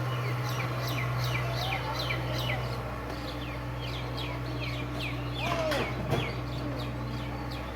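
Small birds chirping in quick, repeated falling calls, two or three a second, over a steady low drone.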